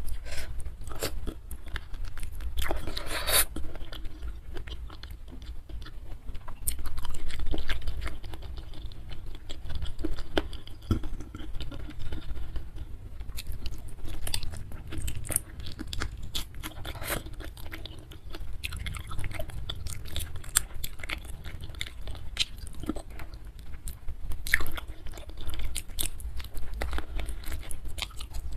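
Close-miked chewing and biting of sweet-spicy braised chicken feet: a steady run of small wet clicks and crunches, loudest for a moment around the eighth second.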